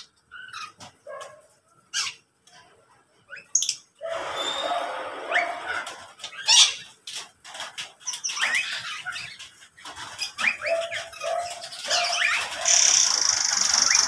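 Mixed birds in an aviary calling: scattered short chirps at first, then about four seconds in a dense chatter of many overlapping chirps, harsh squawks and short rising whistles.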